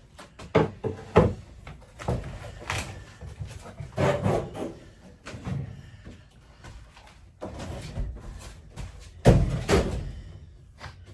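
Irregular knocks, bangs and rattles from RV interior panels and fittings being pulled and pried loose by hand. Two sharp knocks come about a second in, and the loudest bang comes near the end.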